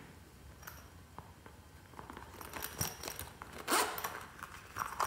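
Hands working fluffy slime, with small sticky crackles and pops as it is stretched and pressed. The loudest crackling comes about two-thirds through.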